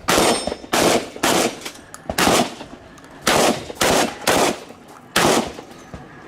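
Shotgun fired rapidly in a practical shooting stage: eight shots at an uneven pace over about five seconds, each with a brief ringing tail.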